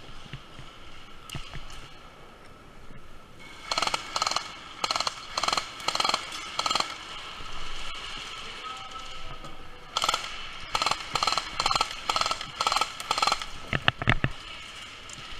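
Airsoft guns firing in two stretches of rapid cracks a few seconds apart, with a heavy low thump near the end.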